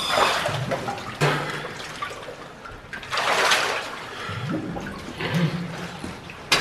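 Water splashing and sloshing in about four bursts as a cave diver in a drysuit moves about in chest-deep water.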